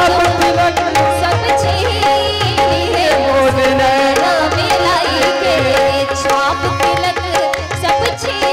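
Live Indian devotional music: harmonium and tabla playing together, the tabla's deep bass strokes pulsing underneath, with a woman's voice singing a wavering melodic line over them.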